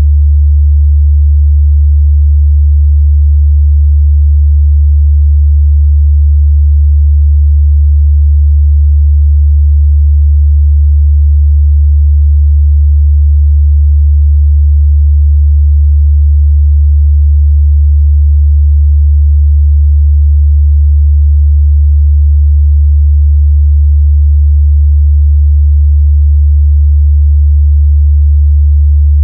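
A steady, loud 73 Hz sine test tone: a single low bass hum, unchanging, for checking the mid-bass response of speakers and headphones.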